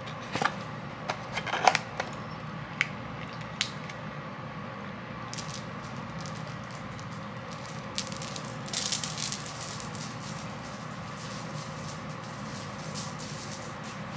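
Close handling noise: a few sharp clicks and taps in the first four seconds, then crackling rustles from about five seconds on, over a steady low hum.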